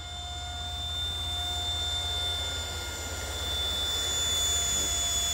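64mm electric ducted fan of a foam-and-cardboard RC jet in flight: a steady high-pitched whine over a rushing noise, growing slightly louder toward the end.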